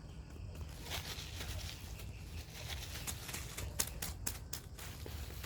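Scratchy rustling and scattered light clicks as hands rub flea powder into a dog's fur, over a low rumble.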